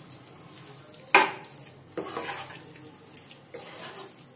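Metal spatula stirring and tossing saucy chicken pieces in a wok, scraping across the pan with a few sharp knocks against it, the loudest about a second in.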